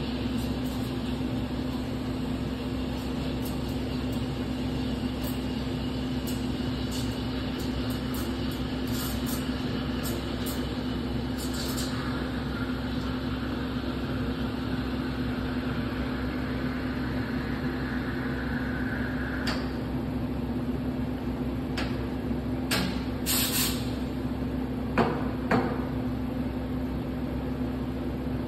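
Espresso machine running with a steady hum, and its steam wand hissing as milk is steamed, the hiss cutting off abruptly about two-thirds of the way through. A few sharp knocks and clinks of cup and jug follow near the end.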